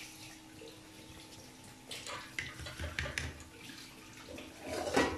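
Shredded chicken and tomato masala frying softly in a pan, with a few light clicks of a wooden spatula against the pan in the middle and a louder scrape near the end.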